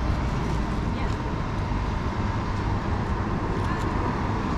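Outdoor city street background: a steady low rumble of road traffic with indistinct voices of people nearby.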